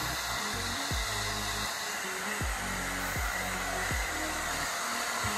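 Pet blow dryer blowing a steady stream of air onto a wet puppy's coat. Background music with a steady beat plays underneath.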